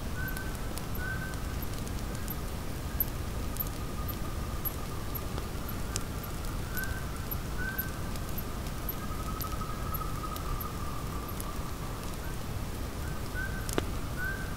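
Outdoor ambience: a bird repeats short chirps, often in pairs, over a steady low hiss. A faint high ticking runs about twice a second, and there is a sharp click near the end.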